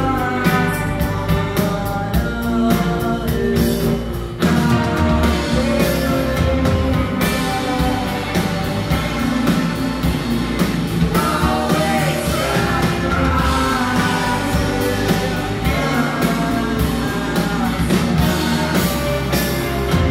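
Indie rock band playing live, with drums, guitars and bass and singing over them. The music runs at full volume, with a brief dip about four seconds in.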